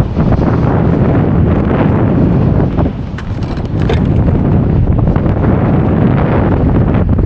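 Wind buffeting the microphone, a loud low rumble that eases briefly about three seconds in.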